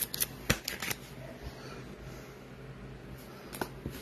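Trading cards being handled and set down on a wooden table: a quick run of sharp clicks and taps in the first second, two more near the end, and a low steady hum underneath.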